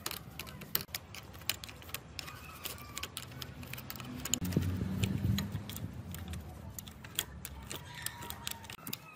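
Light metallic clicks and clinks of a screwdriver and loosened parts as a corroded handlebar switch housing is taken apart, over a steady low hum. A louder low rumble comes about halfway through.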